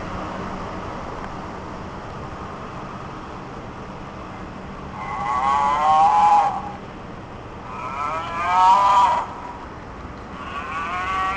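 Battery-operated walking plush bull toy: its small motor whirs steadily, then its speaker plays three electronic moo calls with a wavering pitch, each one to two seconds long, the last starting near the end.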